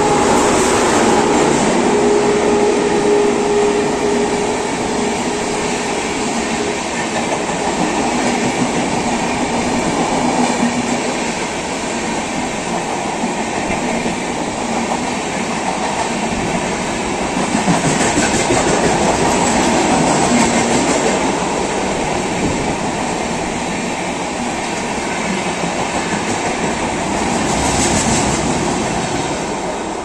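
Red-and-grey LHB passenger coaches of an express train running through a station at speed without stopping. The wheels keep up a continuous rumble and clatter on the rails, which eases off near the end as the last coach passes.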